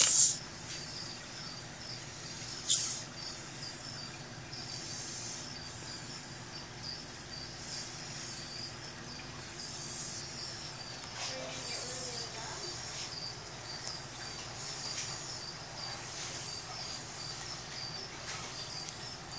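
A small snake hissing in short repeated breaths, about one a second, over a steady high chirping in the background. Two sharp knocks, one at the very start and one about three seconds in.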